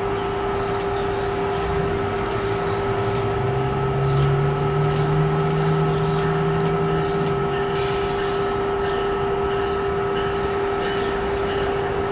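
NJ Transit ALP-46 electric locomotive standing at the platform, giving off a steady electrical hum and whine of several level tones. A lower hum rises in pitch a few seconds in and stops a little past halfway.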